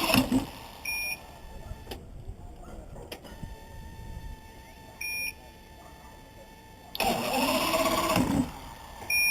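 Evinrude 200 two-stroke outboard turned over on its electric starter in two short cranking bursts, at the very start and again about seven seconds in, without catching. Three short high beeps, about four seconds apart.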